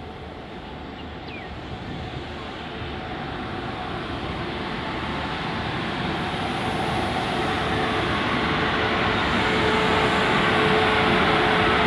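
Freight train of railway oil tank wagons rolling past, the wheels running on the rails and growing steadily louder. A faint steady whine joins in for the last few seconds.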